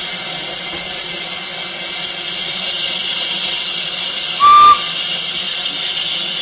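Steam locomotive hissing steadily as steam escapes, with one short, sharp whistle toot about four seconds in that is the loudest sound.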